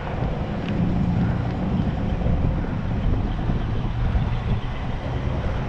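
Wind noise on the microphone and tyre rumble from a bicycle riding along a concrete sidewalk: a steady low rumble with no distinct events.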